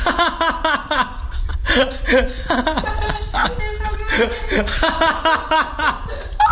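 People laughing and chuckling, with bits of talk too unclear to make out, over background music.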